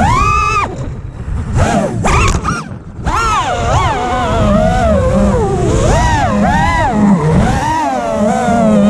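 FPV racing drone's brushless motors whining, the pitch rising and falling constantly with the throttle. The whine cuts back and nearly drops out about two and a half seconds in, then spins up again.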